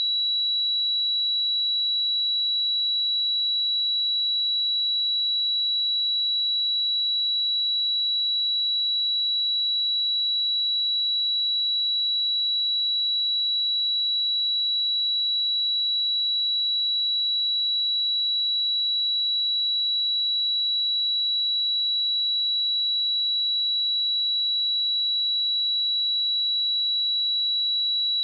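A pure sine-wave test tone at 3915 Hz, a single high-pitched steady tone held without change.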